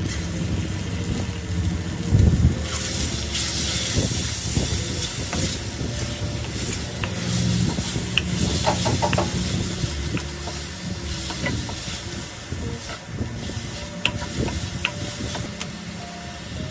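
Raw chicken pieces drop into a hot oiled wok with a thud about two seconds in and start sizzling, then they are stir-fried, the wooden spoon scraping and tapping on the pan. A steady low hum runs underneath.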